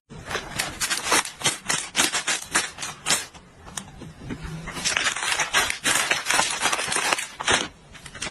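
Rapid, irregular clicking and tapping in dense runs, thinning out for a moment about halfway through.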